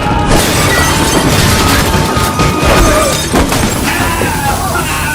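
Loud music mixed with repeated crashing and shattering, like breaking glass, in a dense, continuous racket.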